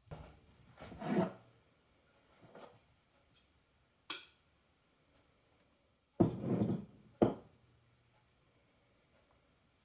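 Scrapes and knocks of baking things being handled: pastry dough pressed and scraped in a ceramic mixing bowl, a pastry board and a ceramic flour jar moved, a spoon taken into flour. The loudest is a scrape a little after six seconds in, followed by a sharp clack.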